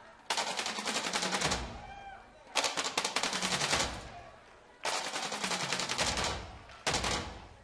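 Machine-gun fire sound effect in the dance performance's soundtrack: four bursts of rapid automatic fire, each starting abruptly and fading out, the last one shorter.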